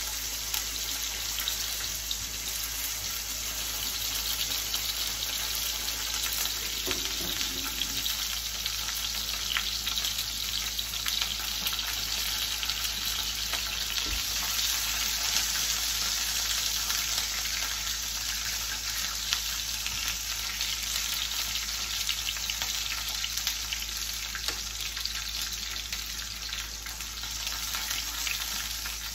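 Onion pieces frying in hot oil in a skillet, a steady sizzle, with a few light knocks of a spatula as they are turned.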